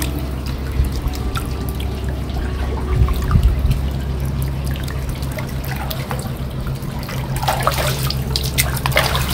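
Hot spring water running into an open-air stone bath: a steady rush of flowing, splashing water, with a few short clicks near the end.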